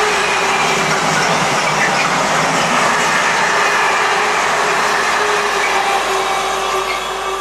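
A train passing close by on the main line, a loud steady rush of noise with a steady hum running through it, beginning to fade about six seconds in.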